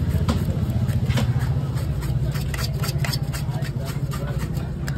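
A heavy knife chopping into a pomfret on a wooden cutting block, a scatter of sharp knocks with a quick run of them about halfway through. Under it, the steady pulsing drone of an idling engine is the loudest sound.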